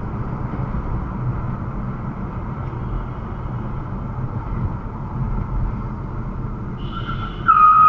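Steady road and engine noise of a car driving at moderate speed, heard from inside the cabin. Near the end comes a brief, louder, steady high-pitched tone.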